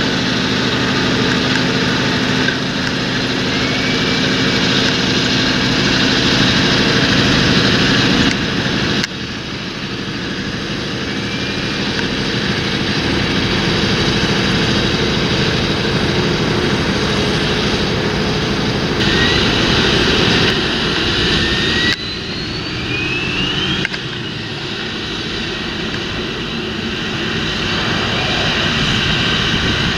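Large John Deere tractor's diesel engine running steadily under load in the field, a continuous drone that changes abruptly twice. A few short rising whistles sound above it.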